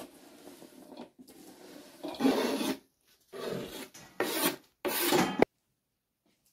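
Knife blade scraping chopped vegetables across a wooden cutting board and off into a metal bowl, in a run of separate strokes that grow louder, then cut off suddenly about a second before the end.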